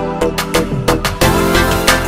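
Background music with a steady beat, with drum hits over sustained melodic tones.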